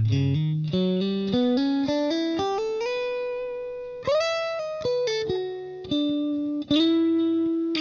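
Electric guitar played through a tube amp and speaker cabinet, heard through an AKG C414 condenser microphone in supercardioid placed at the speaker, with the mic being moved to different positions in front of it. The guitar plays a single-note melodic line that climbs step by step, with held notes and an upward bend about four seconds in.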